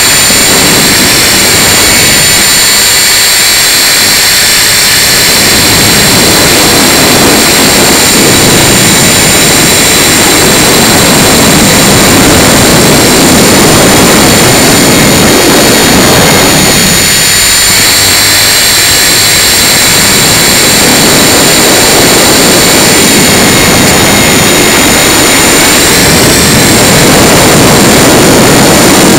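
Tarot 450 Pro electric RC helicopter in flight: a high steady whine from the motor and drive gears over a loud rushing of rotor noise and wind. The rushing eases off briefly twice.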